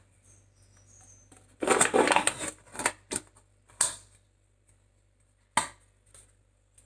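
Close handling noise: rustling and breathy noise lasting about a second and a half, then a short burst and a single sharp click a few seconds later.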